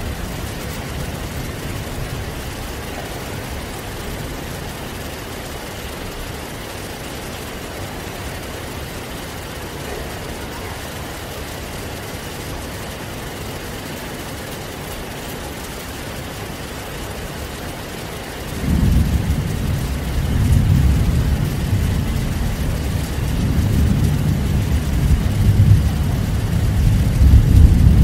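Heavy rain falling steadily as an even hiss. About two-thirds of the way through, a deep rolling rumble of thunder breaks in suddenly and keeps going in uneven swells, louder near the end.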